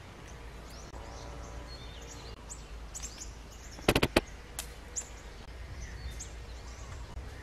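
Small birds chirping, short high calls scattered throughout over a steady low outdoor rumble. About four seconds in there is a quick run of four sharp clicks.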